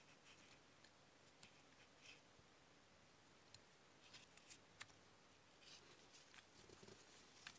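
Near silence with faint scattered clicks and light scraping as the parts of a cast iron coin bank are handled and worked apart in gloved hands; a few sharper metal clicks stand out about halfway through and near the end.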